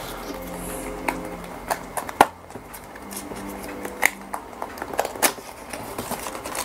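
Paperboard packaging being handled: a small white cardboard box is turned over in the hands and its tucked end flap is pried open, giving scattered sharp taps and clicks of card against card and the tabletop.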